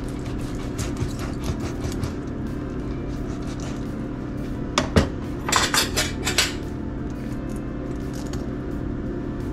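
Fillet knife cutting through a northern puffer on a wooden cutting board, with a sharp knock about five seconds in and a short run of clicks and scrapes of metal on the board just after.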